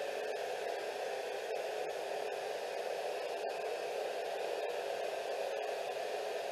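Steady hiss of radio static, strongest in a low-middle band, broken here and there by very brief faint dropouts.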